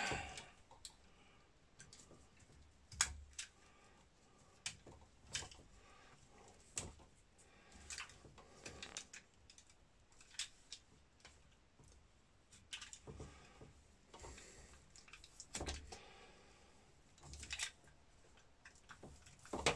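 Irregular light clicks and short scrapes of hand work on electrical cable: stripping the sheath off Romex cable with a dull utility-knife blade.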